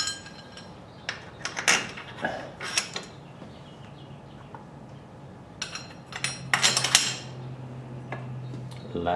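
Metal parts clinking and rattling in two bunches as a steel engine-mount bracket and its hardware are picked up and handled, with a low steady hum in the last few seconds.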